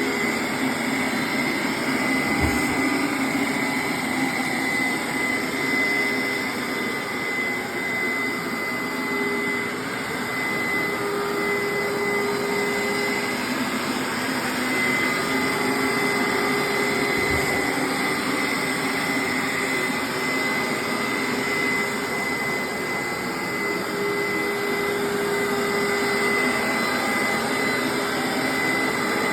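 Hoover SteamVac Dual V upright carpet cleaner running steadily on a rinse pass, its suction motor making a constant whine with a high tone. A lower hum comes and goes every few seconds.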